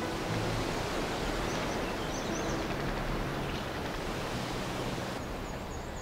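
Steady rush of wind through leafy trees, with a few short high bird chirps about two seconds in and again near the end.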